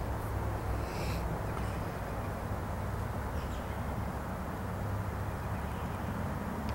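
Steady low rumble of wind on the microphone, with a few faint, brief bird calls, one about a second in and another a little after the middle.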